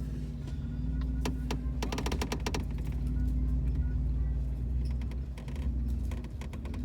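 Off-road Jeep engine running low and steady while crawling over rock ledges. A cluster of sharp clicks and knocks comes about one to two and a half seconds in, from tires and suspension working over the rock.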